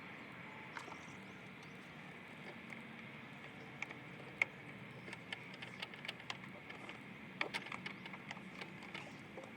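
Scattered light clicks and knocks of a plastic air-intake duct and its hose clamps being worked loose by hand, over a faint steady hiss. The clicks come more often in the second half.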